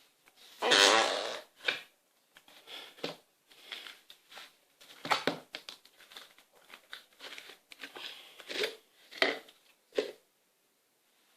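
A kilogram of slime squeezed and kneaded by hand, pushing out trapped air in wet, fart-like squelches: one long loud squelch about a second in, then a run of shorter irregular squishes and pops.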